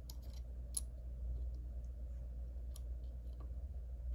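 A few small, sharp plastic clicks as a microSD card is pushed into its slot on a circuit board, the sharpest about a second in, over a steady low hum.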